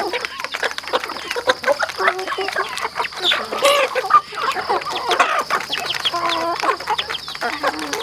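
A flock of chickens clucking while they feed, with a rapid scatter of pecking clicks at the trough. A louder cluster of squawking calls comes about three and a half seconds in.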